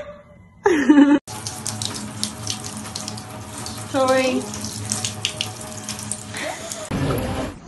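A short loud cry about a second in, then a handheld shower spraying water steadily over a small wet dog, with a brief cry falling in pitch partway through.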